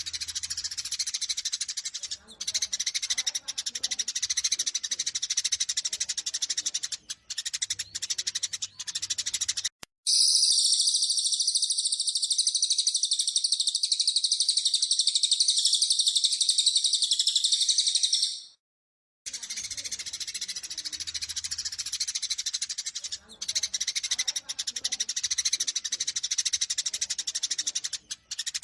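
Eurasian tree sparrows giving dense, rapid chattering fight calls, many chirps overlapping. About ten seconds in, this gives way to a louder, unbroken high trill for about eight seconds, which cuts off abruptly before the sparrow chatter resumes after a brief gap.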